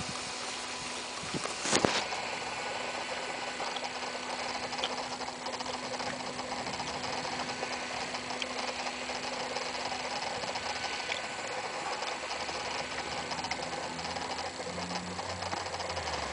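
Small motor and propeller of a radio-controlled paraglider trike buzzing steadily in flight, with a single sharp knock about two seconds in.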